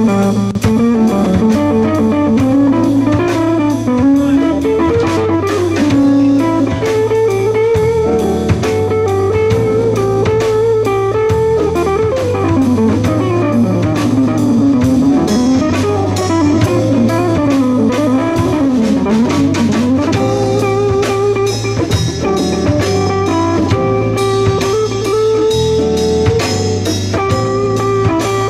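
A live jazz-blues band playing an instrumental passage. An archtop electric guitar carries a winding melodic line over a drum kit keeping a steady beat, with keyboard and a second electric guitar behind it.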